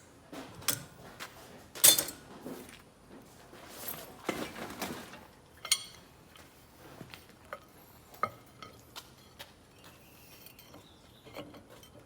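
Metal parts and hand tools clinking and clicking as they are handled, in scattered sharp knocks with a rougher scraping stretch around four to five seconds in.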